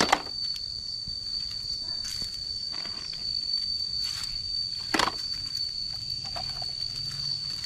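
A steady high-pitched insect drone holds one note throughout. A few sharp knocks of muddy plastic toy vehicles being handled and dropped into a plastic basket cut across it, one at the very start and the loudest about five seconds in.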